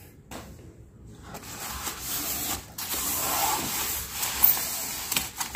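Polystyrene foam packing rubbing and scraping as it is pulled apart and lifted off a boxed scale: a rustling hiss that starts about a second and a half in, with small clicks and one sharp click a little after four seconds.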